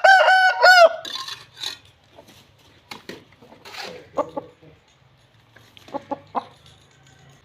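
Aseel rooster crowing: the loud, drawn-out end of a crow fills the first second, followed by a few short, quieter calls about four and six seconds in.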